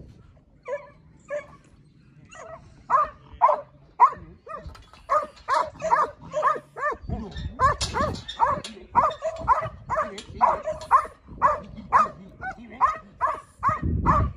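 Black-and-tan yard dog barking at penned sheep: two single barks about a second in, then steady repeated barking at about two to three a second. This is a working bark, used to force the mob.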